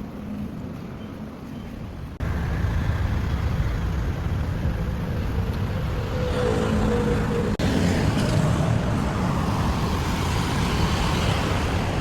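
Road traffic noise: a steady rumble of passing cars, stepping up abruptly about two seconds in.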